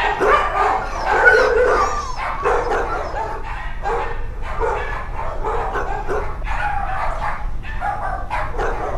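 Several dogs barking and yipping in a kennel block, short overlapping calls one after another.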